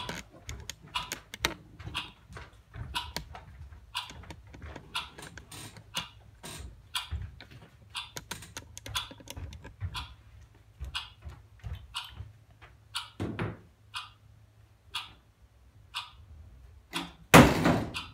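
Metal-framed stacking chairs being handled on a stage floor: a string of short knocks and clicks, roughly two a second, then one loud clatter near the end as a chair is put down hard.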